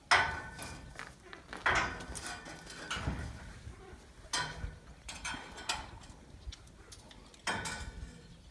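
Steel scaffold parts clanking against each other with a short metallic ring: four main knocks a second or more apart, with lighter clinks between.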